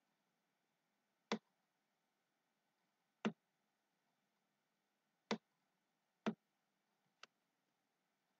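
Computer mouse button clicking five times at uneven intervals, the last click fainter.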